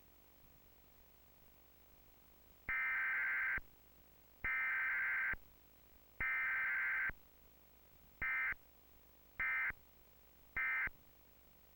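Electronic alert beeps of a mock Emergency Alert System broadcast: three long beeps, then three short ones, each a steady chord of high tones, over faint hiss.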